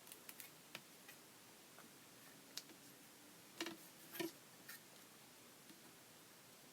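Near silence broken by a few faint, irregular clicks and taps from handling the fuse tool and the plastic page protector, two of them a little louder about three and a half and four seconds in.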